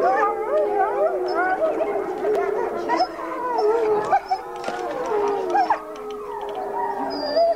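A wolf pack howling in chorus: several overlapping long calls at different pitches, gliding up and down.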